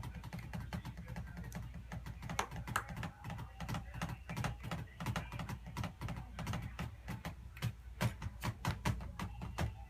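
Typing on a computer keyboard: quick, irregular key clicks, with a steady low hum underneath.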